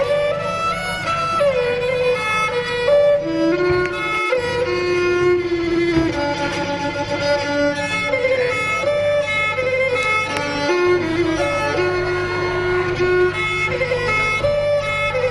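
Instrumental background music: a sustained melody that slides between notes, played over a steady low drone.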